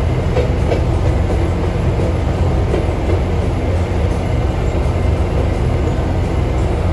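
Motorized rail speeder running along the track, heard from inside its cab: a steady low engine drone mixed with wheel and rail noise.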